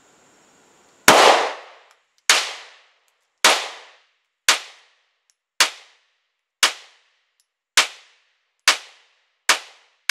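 A Polymer 80 Glock 19 build, a 9mm pistol, fired in steady slow fire: about ten sharp shots, roughly one a second, each with a short ringing tail. The shots come a little faster near the end.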